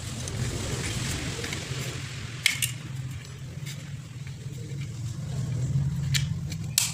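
A few sharp clicks and taps of small parts as the rewound coil of a ding-dong doorbell is set into its housing: one about two and a half seconds in and two near the end, over a steady low hum.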